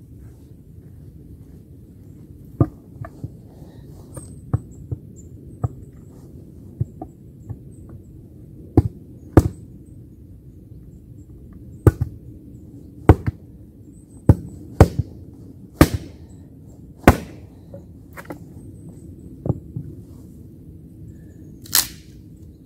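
Wood being chopped by hand with a tool: irregular sharp knocks, about a dozen, the loudest coming in the middle, over a low steady background noise.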